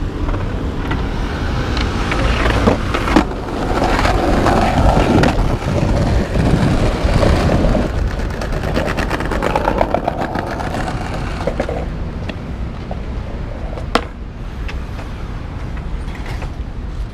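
Skateboard wheels rolling over stone-tile paving, a continuous rumble with quick, regular clicks as the wheels cross the joints between the tiles. A single sharp clack comes near the end.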